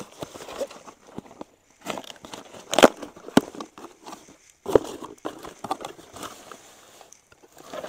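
Small cardboard box being opened by hand: irregular rustling and crackling of the cardboard flaps, with a few sharp snaps, the loudest about three seconds in and again just before five seconds.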